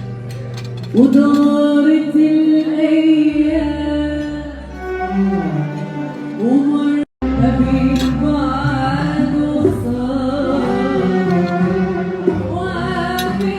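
Music with a singing voice, held notes with vibrato over instrumental accompaniment. The sound cuts out completely for a split second about seven seconds in.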